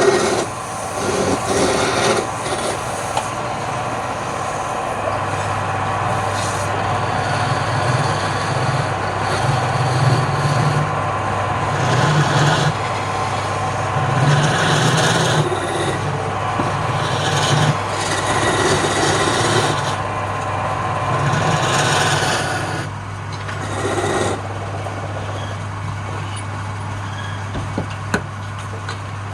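Wood lathe running with a steady motor hum. A turning tool or abrasive works the spinning wood in repeated scraping passes about every two seconds, and these stop a few seconds before the end while the lathe keeps running.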